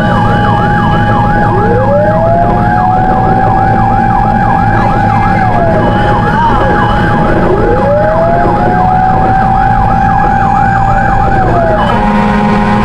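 Fire truck sirens on an emergency run: a fast yelp siren over a slower wail that climbs, holds and falls twice, with steady engine and road noise beneath. Near the end, a steady horn-like tone joins in.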